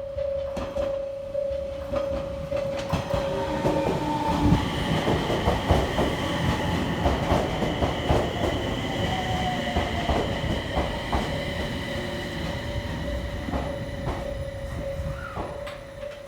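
Japanese in-station level crossing warning sounding a steady, pulsing electronic tone. From about four seconds in, a train passes over the crossing, its wheels clacking over the rail joints with a high wheel squeal, then fades toward the end while the crossing tone keeps sounding.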